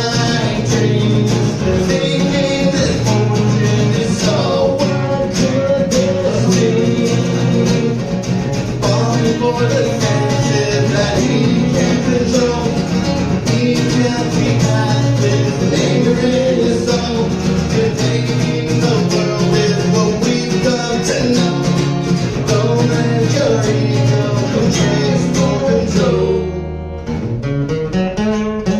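A band playing live, with electric guitar prominent. Near the end the sound briefly thins out, leaving mostly guitar, before the full band comes back in.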